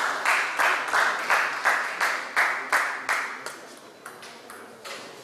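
Small crowd of spectators clapping in a steady, even rhythm, about three claps a second, dying away about three and a half seconds in.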